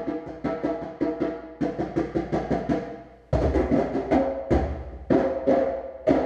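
Drum circle of several hand drums played together in a fast, steady rhythm, starting all at once. A deeper, heavier drum joins in about three seconds in.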